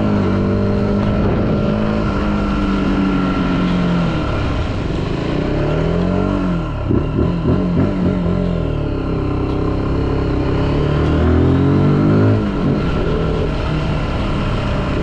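Zontes U125's 125 cc single-cylinder engine running, over steady tyre hiss on a wet road. The engine note falls about four seconds in and turns choppy for a couple of seconds in the middle. It then climbs in pitch again and drops abruptly about twelve seconds in, an upshift.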